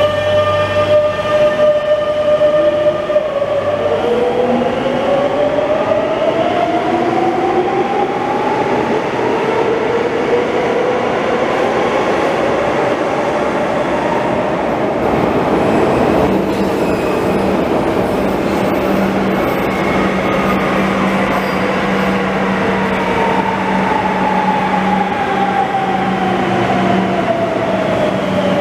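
Metro train pulling out of the station, its electric traction motors whining upward in pitch as it accelerates away over rumbling wheels. From about two-thirds of the way through, the next train comes in with a steady low hum, and its motor whine falls in pitch as it brakes into the platform.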